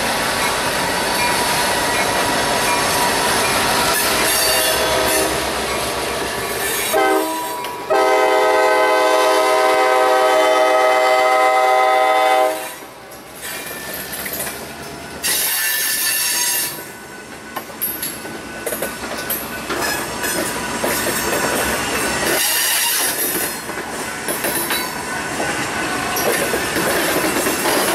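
Diesel freight locomotive approaching and sounding its horn, a short blast and then a long blast of about four seconds. The locomotive then rumbles past, followed by freight hopper cars rolling by with high wheel squeal and rattling.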